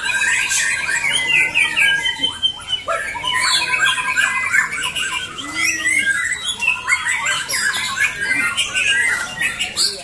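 Many caged white-rumped shamas (murai batu) singing at once in a contest, a dense, loud, unbroken tangle of rapid, sharp, overlapping whistles and chattering phrases as the birds trade bursts of song.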